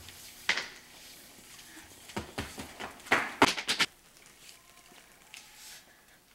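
Footsteps in flip-flops and sandals slapping on a hard tile floor: a few scattered slaps, then a quick, louder run of them about three seconds in.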